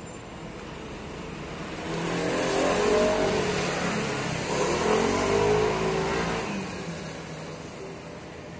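A motor vehicle passes by, its engine note rising and falling. It swells about two seconds in, is loudest around three and five seconds, and fades away near the end.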